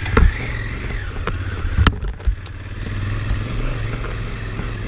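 Honda Africa Twin's parallel-twin engine running steadily at low speed on a rough dirt trail, with three sharp knocks as the bike jolts over the ground; the loudest comes about two seconds in, followed by a short drop in the engine sound.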